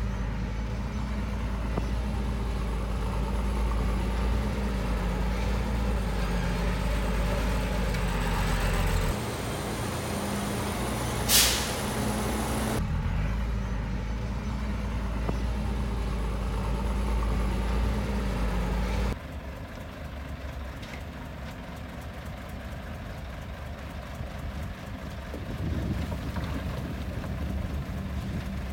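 Heavy diesel earthmoving machinery running steadily, with a short, loud hiss of compressed air about eleven seconds in, typical of a dump truck's air brake. The engine sound changes abruptly twice and runs quieter through the last third.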